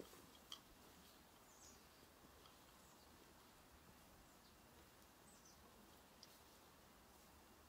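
Near silence: faint woodland ambience with a few short, distant bird chirps. One faint footstep on leaf litter sounds about half a second in.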